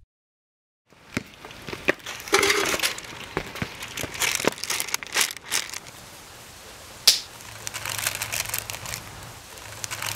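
Close-up crunching of Doritos tortilla chips being chewed, with the foil chip bag crinkling. It starts about a second in, after a moment of silence, and there is one sharp snap about seven seconds in.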